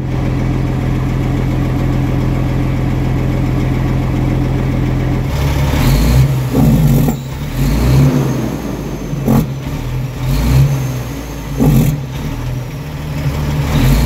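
Semi-truck diesel engine idling, heard close to its exhaust piping. About five seconds in, an uneven popping begins, repeating roughly once a second: the sound of a bad exhaust leak.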